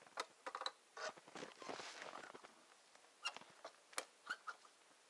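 Hands working a wooden trap box and the marten trap set in it to close it: a run of sharp clicks and knocks, with a stretch of scraping about two seconds in.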